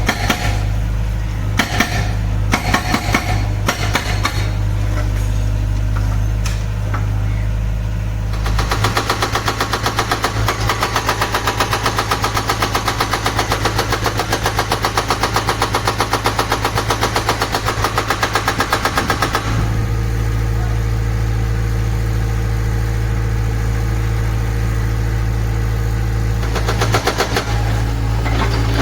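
Excavator diesel engine running, with a hydraulic breaker hammering in a fast, even rhythm for about ten seconds in the middle. A few single knocks come early, and a short burst of hammering comes near the end.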